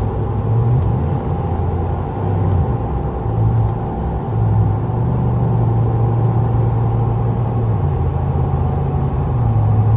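Chevrolet Silverado 5.3-litre V8 and its stock exhaust with a 4-inch tip, heard inside the cab while cruising at about 70 mph: a steady low hum over road noise, with no drone.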